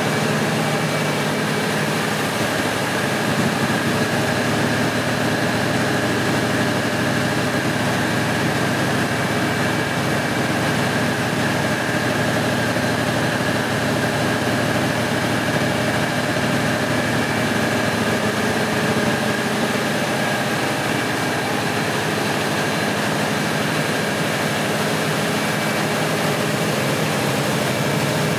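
Large Caterpillar diesel generator set running steadily, a deep engine drone with a steady high whine over it.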